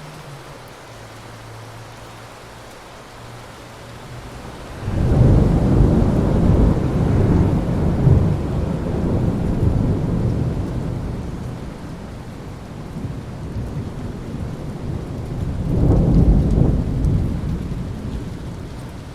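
Steady rain with a thunderclap about five seconds in, rolling into a long low rumble that slowly fades, then a second swell of thunder near the end.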